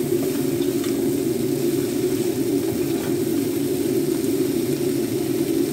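A wooden spatula stirring vegetables in a wok, with a few faint light clicks and scrapes against the pan, over a steady low rushing noise.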